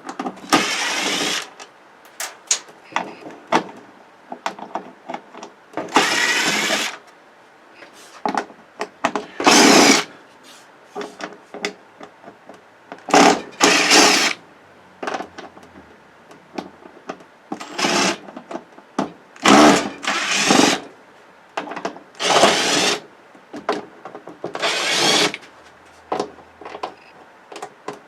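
Cordless drill-driver backing screws out of a television's back panel in about ten short bursts, each half a second to a second long, with clicks and clatter of plastic parts and loose screws between the bursts.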